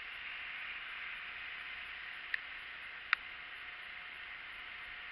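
Car tyres hissing on a wet street as a car passes close by, over a steady hiss of wet traffic. Two sharp clicks come a little over two seconds and about three seconds in.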